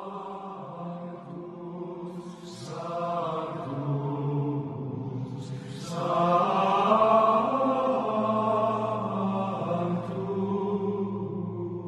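Chant-like background music with sustained droning voices and held chords, growing louder about halfway through, with two short shimmering swells about two and a half and six seconds in.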